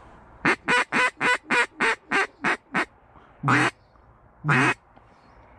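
Mallard hen-style quacking at close range: a fast run of nine short quacks, then two longer drawn-out quacks.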